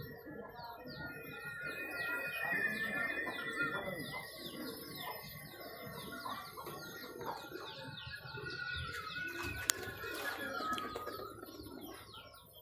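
A flock of pigeons flapping as it circles and comes in to land, with birds chirping rapidly and continuously over it. There is one sharp click about ten seconds in.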